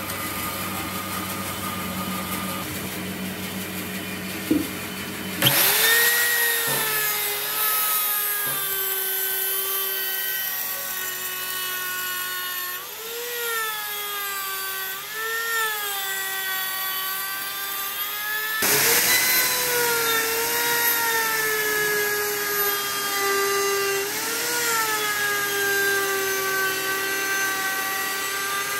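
Electric router cutting a slot along the edge of a wooden board: a high motor whine that starts suddenly after a few seconds of low steady hum, its pitch dipping several times as the bit bites into the wood and recovering as it eases off.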